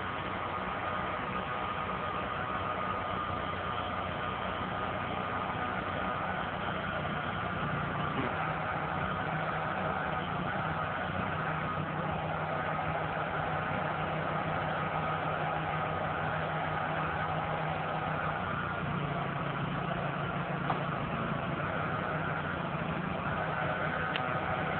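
PODS delivery truck's engine running steadily while its hydraulic lift lowers the storage container to the ground. The hum shifts in pitch about a third of the way in and again about three quarters of the way through.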